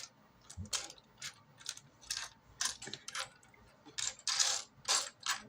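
Loose plastic Lego pieces clicking and clattering as a hand rummages through a pile of them, in irregular clicks with a busier spell about four seconds in.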